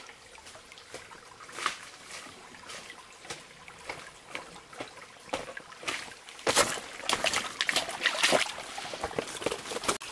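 A shallow forest stream trickling over rocks, with footsteps in rubber boots stepping on dry leaves and wet stones. The steps come thick and louder from about six and a half seconds in.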